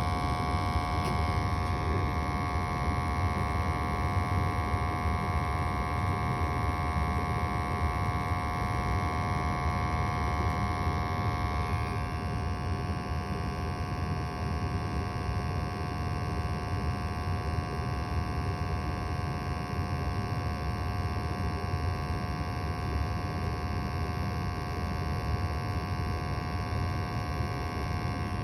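A 21-year-old gas furnace running: a steady motor hum and air rush with several steady whining tones from its fan motors. The higher tones shift slightly about twelve seconds in.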